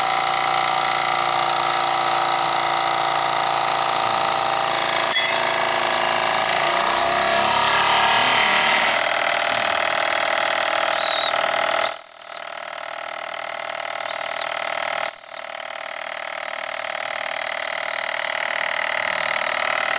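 Ball-raced Jensen model 70 toy steam engine and its belt-driven generator running at high speed, a steady high whir. About twelve seconds in, two short whistle toots about three seconds apart rise and fall in pitch, and after them the running sound is thinner and quieter, then slowly swells again.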